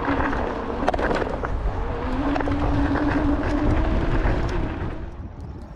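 Inmotion L9 electric scooter ridden over rough gravel and dried mud: a dense rumble and rattle from the wheels and frame, with scattered sharp clicks of stones, and a steady motor whine through the middle. The noise eases off near the end.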